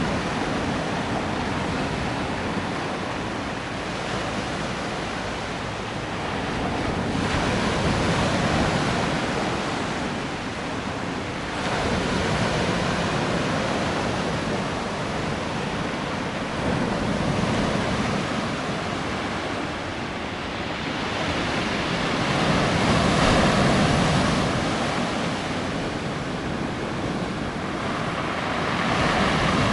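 Black Sea waves breaking on the shore, surf rising and falling in slow surges every few seconds, with some wind on the microphone.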